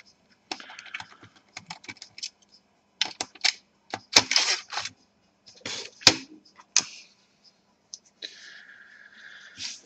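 Screwdriver work and handling on a plastic laptop underside: irregular clicks, ticks and knocks of the screwdriver, screws and plastic parts, the sharpest about 4 and 6 seconds in, then a scraping rasp over the last second and a half.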